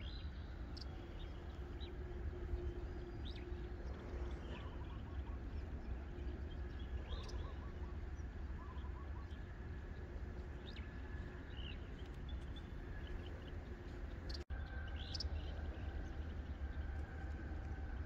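Outdoor ambience of wind rumbling on the microphone, with scattered short bird chirps and a faint steady hum underneath; the sound briefly cuts out about two-thirds of the way through.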